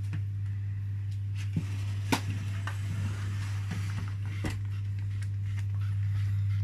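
A few sharp knocks and clicks of a pan and kitchen things being handled, the loudest about two seconds in, over a steady low hum.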